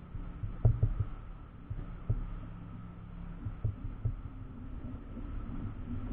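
Low steady hum with dull knocks on a bass boat's hull and deck, a cluster of them just under a second in and a few more spread through.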